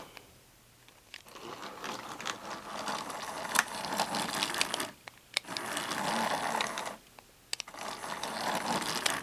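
Trackmaster remote-control Thomas toy engine's small battery motor whirring as it runs along plastic track, with a few sharp clicks. The motor noise stops briefly twice.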